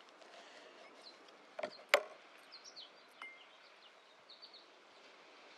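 Two sharp knocks a third of a second apart, about a second and a half in, from a glass and bar things being handled on a wooden table, over a faint steady outdoor background.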